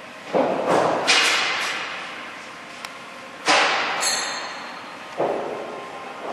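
Four sharp metallic clanks and thumps, each ringing briefly and dying away over about a second, about two in the first second and more a little past the middle.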